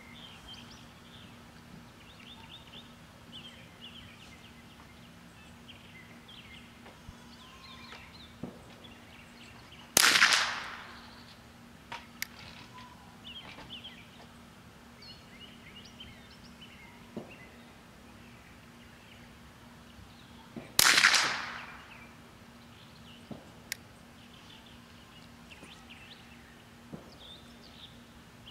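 Two shots from a Marlin Model 60 semi-automatic .22 LR rifle firing Federal Gold Medal Target ammunition, about ten seconds apart, each a sharp crack with a short fading tail. Birds chirp faintly between the shots.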